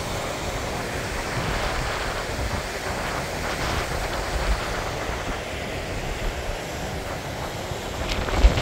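Mountain stream rushing over rocks, a steady hiss of running water, with wind buffeting the microphone in low gusty rumbles. A single thump near the end.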